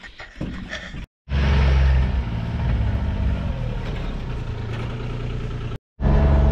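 Engine of an off-road farm vehicle running steadily under way, loud and low. The sound drops out briefly twice, about a second in and near the end.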